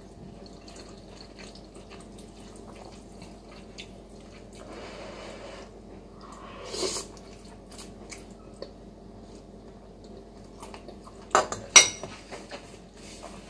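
Quiet eating sounds: noodles slurped and chewed, with faint clicks of a metal utensil, then two sharp clinks of the utensil against a ceramic bowl near the end.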